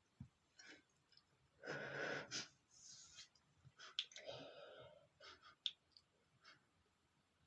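A man's short, wheezy breaths and sniffs as he holds back a sneeze, the two louder breaths about two seconds in and about four seconds in.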